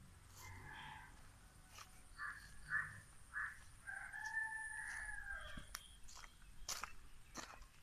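A rooster crowing: a few short notes, then one long drawn-out note that falls away at the end, followed by a few sharp clicks.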